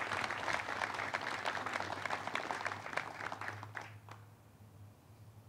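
Audience applause, many hands clapping, which dies away about four seconds in.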